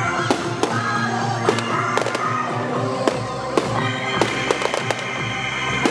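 Aerial fireworks shells bursting with about ten sharp bangs at irregular intervals, over continuous music.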